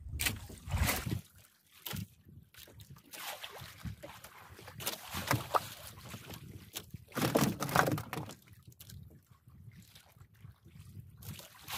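Sea water sloshing and lapping against a small wooden outrigger boat's hull, coming and going in uneven surges.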